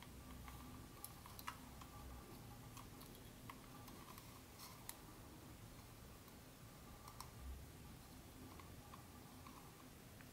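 Faint, scattered light clicks and taps of small objects being handled, over a faint steady hum.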